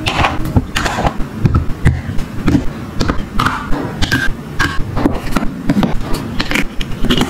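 Hard plastic toy kitchen pieces handled and set down: irregular clacks and taps of plastic on plastic.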